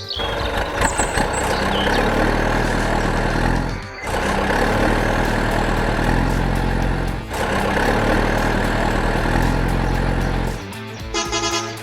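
Heavy vehicle engine running steadily with a loud, rough rumble, cut off briefly twice, about four and about seven seconds in. Near the end it gives way to rhythmic pitched tones.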